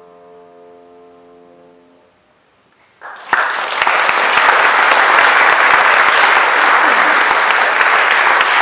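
The last held piano chord of the song fades away, then comes a brief hush. About three seconds in, audience applause breaks out and continues loud and steady.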